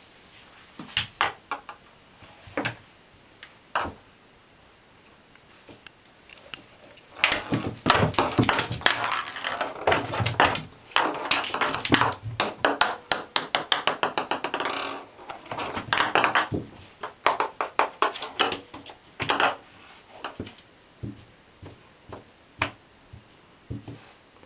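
Ping-pong ball bouncing and clattering around an empty bathtub as a kitten bats at it. A few scattered taps come first, then about a third of the way in a long run of rapid rattling bounces lasting over ten seconds, thinning to occasional taps near the end.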